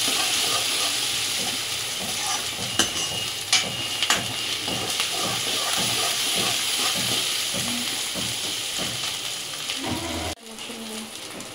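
Chopped onion, capsicum and ginger-garlic paste sizzling as they sauté in a metal kadhai, stirred and scraped with a steel ladle, with a few sharp clinks of the ladle on the pan a few seconds in. The sizzle drops off abruptly near the end.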